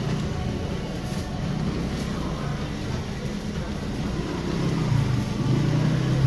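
A steady low rumble that swells near the end, under the hiss of sauce sizzling on a hot flat-top griddle as it is brushed over an egg-coated sheet of cold noodles.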